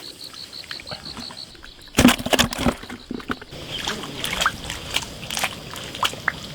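Water splashing and sloshing, with a loud burst of splashes about two seconds in, then scattered smaller splashes.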